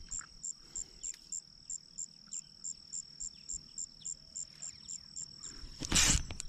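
Crickets chirping: even high chirps about three a second over a steady high trill. A brief burst of rushing noise comes near the end.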